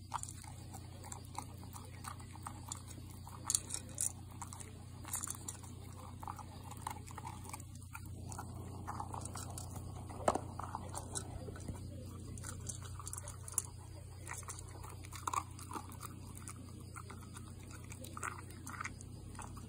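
American Cocker Spaniel eating dry kibble from a bowl: irregular crunching chews and clicks, with a few louder clicks now and then.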